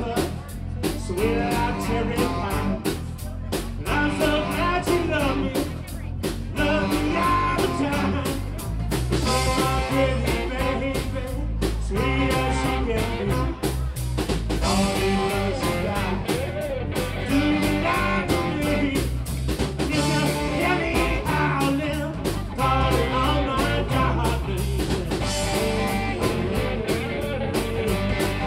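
A blues band playing live: a man singing over electric guitar, electric bass and a drum kit.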